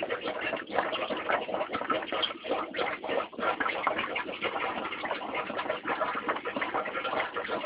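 Continuous busy chatter of bird-like animal calls, dense and irregular with no pauses.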